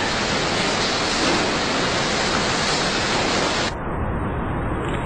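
A steady, even hiss of background noise with no distinct events. About three-quarters of the way through its top end drops away and it becomes duller.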